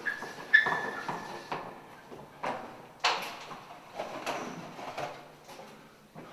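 White chalk scraping in fast strokes across a blackboard, with a high chalk squeal through the first second and a half, loudest about half a second in. This is followed by separate scrapes and knocks of footsteps and shuffling on a concrete floor strewn with broken chalk.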